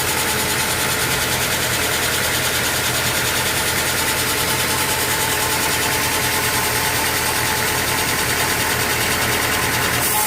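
Engine-driven sawmill machinery running steadily, with a low hum and an even pulsing beat.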